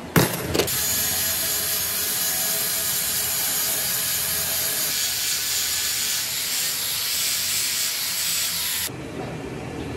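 A workshop tool abrading metal with a steady, rough hissing noise. A few knocks come first, and the noise cuts off suddenly near the end.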